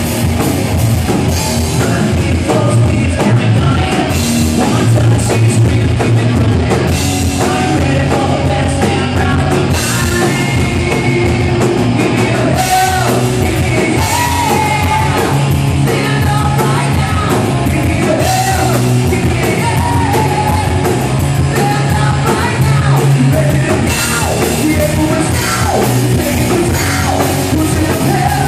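Live rock band playing loudly: electric guitars, bass guitar and drum kit, with a singer singing and yelling into a microphone over them.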